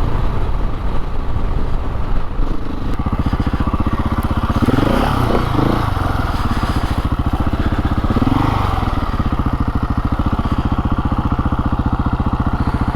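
Dirt bike engine running at low revs as the bike pulls up, then ticking over steadily. The revs rise and fall briefly about five seconds in and again around eight seconds.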